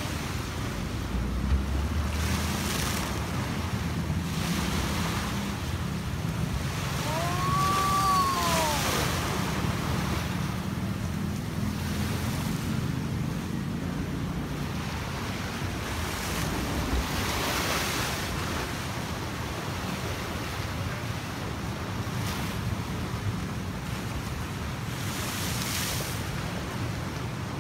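Sea waves surging against a concrete seawall and washing back, with wind on the microphone. The surf swells louder every eight seconds or so. About eight seconds in, a short tone rises and falls over it.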